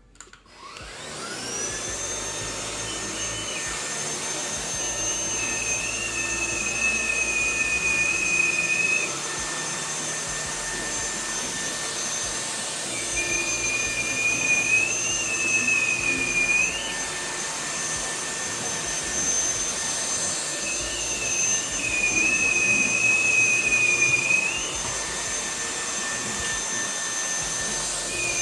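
Wyze cordless stick vacuum switched on at medium speed: the motor spins up within the first second or so to a steady high whine, then runs while it vacuums a rug. A wavering high whistle comes in three times for a few seconds each, and the sound grows louder each time.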